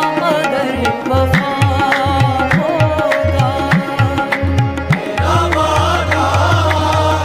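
Hindi song music in an instrumental passage: a melody over regular drum strokes, with a steady low bass coming in about five seconds in.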